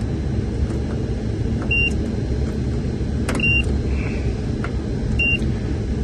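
Digital multimeter giving three short, high beeps on its continuity setting as the probes are touched across each cartridge fuse in turn, a sign that the fuses are intact. A steady low rumble runs underneath.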